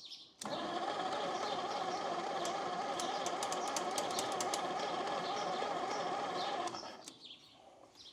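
Electric starter cranking the John Deere 720's pony motor for about six seconds without it catching, starting abruptly and dying away near the end; the owner thinks the pony motor might be out of fuel.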